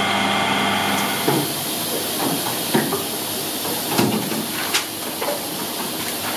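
Steady hiss of steam from a rice paper steamer, broken by a few short knocks and clatters as the sheets are handled. A steady machine hum runs underneath at the start and stops about a second in.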